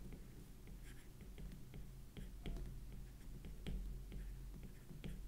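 Stylus tapping and scratching on a tablet during handwriting: faint, irregular clicks a few times a second over a low, steady hum.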